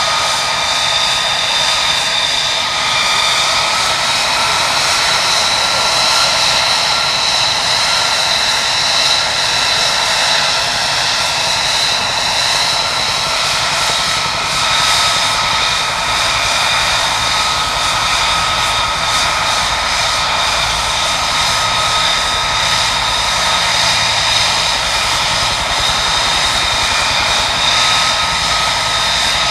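F-35A Lightning II's single Pratt & Whitney F135 turbofan running at ground idle: a steady, loud jet whine with high-pitched tones that waver slightly.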